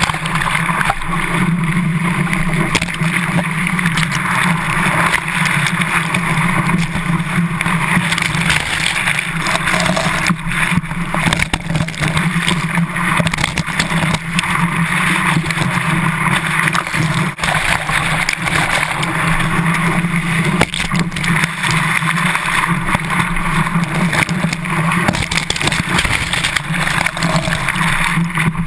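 Water rushing and splashing over a GoPro camera mounted on the tail of a longboard surfboard riding a wave: a loud, steady rushing noise with a low hum beneath it.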